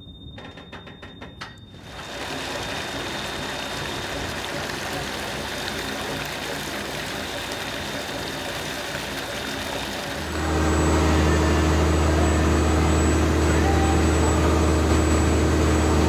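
Lobster boat's engine running with water churning along the hull. About ten seconds in it changes to a louder, steady low drone of the engine heard inside the wheelhouse.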